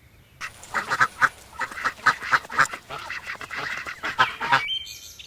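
Duck quacking: a rapid, continuous run of quacks, about four or five a second, starting about half a second in and stopping near the end.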